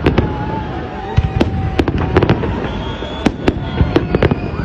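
Fireworks going off in quick succession: many sharp bangs and cracks at irregular intervals, several a second. Thin whistling tones sound over them.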